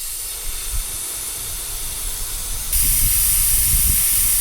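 Compressed air hissing out of a tyre's puncture hole where a nail has just been pulled out; a steady hiss that gets louder about two-thirds of the way in.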